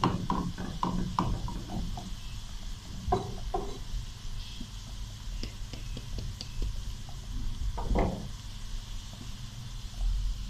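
Chopped onions frying in hot oil in a non-stick frying pan, being browned for a tarka: a steady sizzle, with a wooden spatula stirring and knocking against the pan, mostly in the first two seconds, and a few more knocks later, the loudest about eight seconds in.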